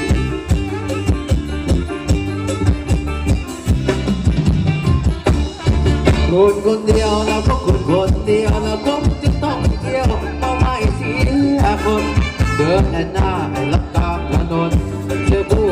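Live band playing Thai ramwong dance music, with a steady drum beat and a singer's voice.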